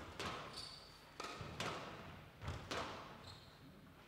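Squash rally: the ball cracks off the rackets and walls with a sharp strike every half-second to a second, each ringing on in the hall, with a couple of short high squeaks from court shoes.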